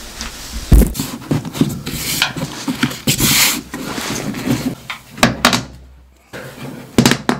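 Knocks, thuds and scraping as a washing machine is tipped back and a flat base panel is handled and pressed into place on its underside. The loudest thud comes just under a second in, with a longer scrape about three seconds in and a few sharp knocks near the end.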